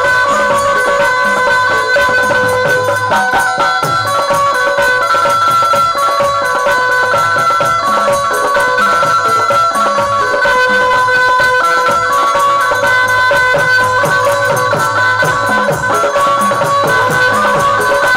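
Instrumental interlude of Indian devotional folk music: a melody of held notes on a keyboard instrument over a steady hand-drum rhythm and fast rattling, jingling percussion.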